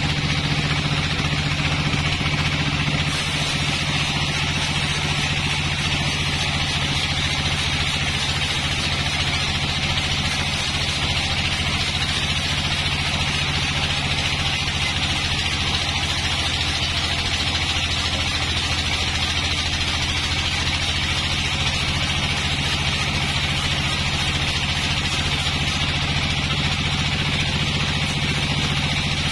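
Band sawmill running steadily, its blade sawing lengthwise through a dry, rotten log, with a constant motor hum under a bright hiss of the cut. The cutting sound brightens about three seconds in.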